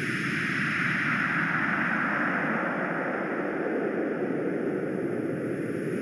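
Synthetic noise from the CheckHearing online noise generator, shaped by its ten-band equaliser with EQ fluctuations on, so the tone keeps shifting: a hiss in the upper middle swells for a few seconds and fades again over a steady low rush.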